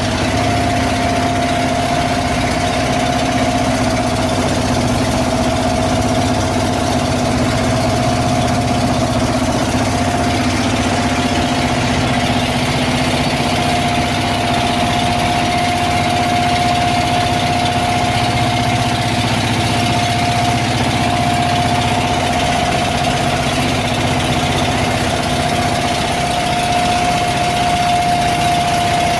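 Boat engine running at a steady speed, with a constant hum over a steady rushing hiss.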